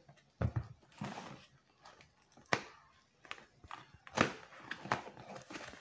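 Cardboard product box being cut open with scissors and handled: irregular snips, scrapes and taps of blades and hands on cardboard, the loudest scrape a little after four seconds in.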